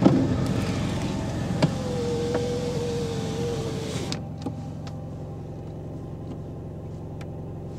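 Mercedes-Benz W210 engine idling steadily, with the new fuel pump inaudible over it. A whirring hiss with a faint wavering whine runs for about the first four seconds, then stops suddenly.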